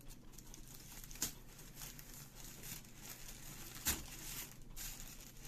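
Paper pompom flowers rustling and crinkling as they are pushed and adjusted by hand, with two sharp clicks, one about a second in and a louder one near four seconds in.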